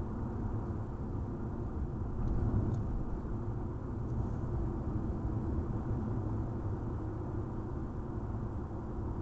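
Steady low rumble of a car driving along at road speed, heard from inside the cabin: tyre and engine noise.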